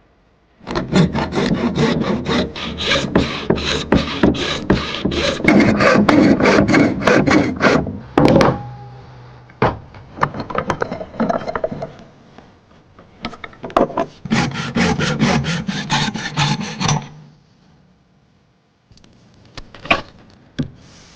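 Rapid back-and-forth strokes of a hand tool working wood, in a long loud run, a quieter stretch, then a second shorter run that stops about four seconds before the end.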